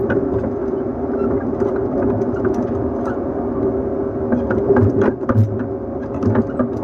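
JNR 115 series electric train heard from inside its motor car: the MT54 traction motors and gears hum at a steady pitch as it runs at an even speed, with scattered clicks and knocks from the running gear and track.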